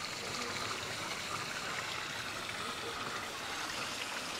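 Water from a public fountain's spouts splashing steadily into its stone basin.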